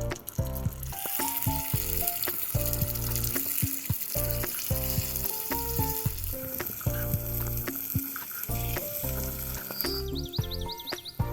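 Food frying in a miniature cooking pot, a steady sizzle that fades out near the end, over background music with a repeating melody.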